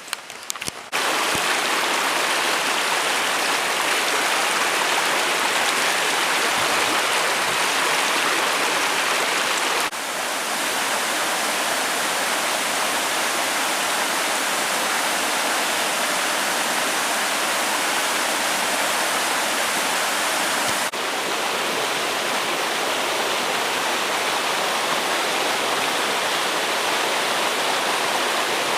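Mountain stream rushing over rocks, a steady, loud roar of flowing water. A few short clicks come just before it starts, about a second in.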